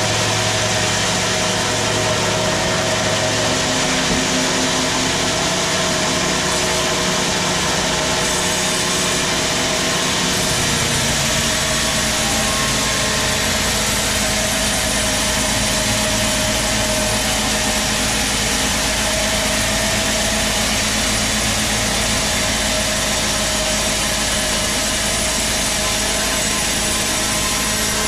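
Large vertical band sawmill running steadily as its blade rips through a long teak log, cutting off a slab: a continuous machine noise with a few held tones.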